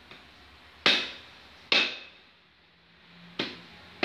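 A heavy cleaver chopping goat meat on a wooden chopping block: a series of sharp chops, the two loudest about a second in, then two more near the end.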